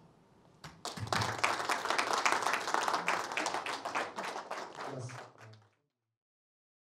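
Audience applauding: a crowd's clapping starts about a second in, thins out and cuts off about two-thirds of the way through.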